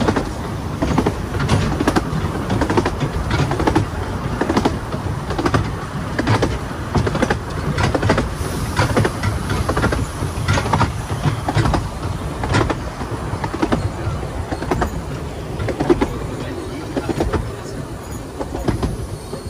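Carriages of a 15-inch-gauge miniature steam railway running along the track: a steady rumble of wheels on rail with irregular clicks and knocks.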